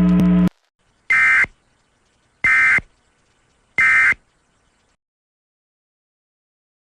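Emergency Alert System end-of-message data tones: three short, identical buzzing bursts about a second and a half apart, marking the end of the alert. A steady hum cuts off about half a second in, just before the first burst.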